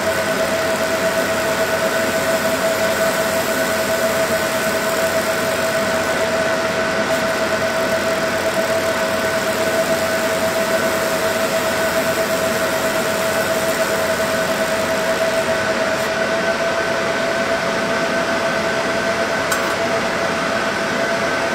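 Laser engraving machine running: a steady hiss with a high whine held on one pitch.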